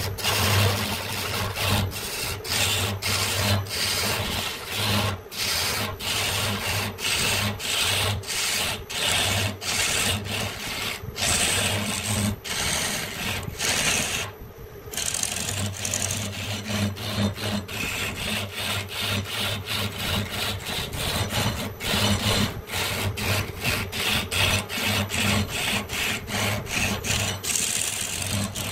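A hand tool worked back and forth across a wooden branch in quick, even strokes, with a short pause about halfway through.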